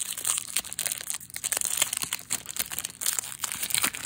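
Foil trading-card booster pack wrapper crinkling and crackling as it is handled, an irregular run of sharp crackles.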